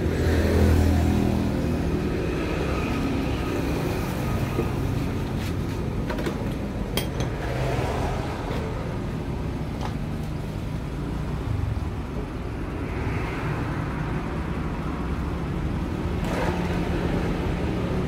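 Road traffic going by in a steady stream, with a few sharp clicks partway through.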